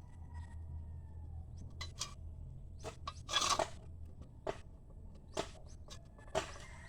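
Water sputtering and splashing irregularly from a newly plumbed pump line, in sharp crackles with a louder gush about halfway through, over a low steady hum.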